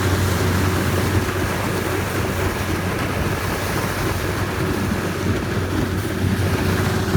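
Steady rumble of a vehicle in motion, a low engine hum under an even wash of noise with a faint steady tone above it.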